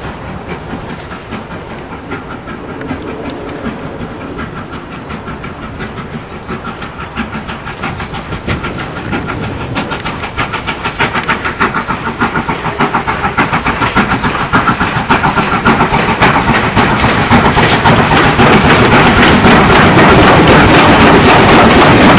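Steam locomotive 63601, a Great Central Robinson 8K (LNER O4) 2-8-0 freight engine, working a freight train towards and past, its chuffing exhaust beats growing steadily louder as it nears. As it passes close by near the end, the wagons clatter over the rail joints.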